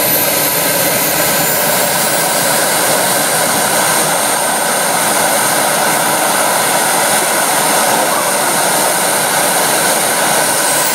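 Miniature jet turbine of a radio-controlled MiG-15 model running with a loud, steady hissing roar. A high whine climbs in pitch over the first couple of seconds, then holds.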